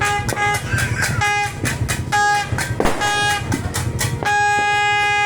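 Yamaha R15 single-cylinder engine running while a horn sounds in a string of short beeps, then one long blast held from about four seconds in. Several sharp cracks cut through, one loud about three seconds in.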